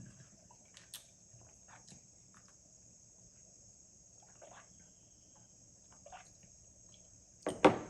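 Quiet, close-miked eating sounds of nachos being chewed: scattered small mouth clicks and short soft crunches over a steady high-pitched hiss. Two sharp louder clacks come near the end.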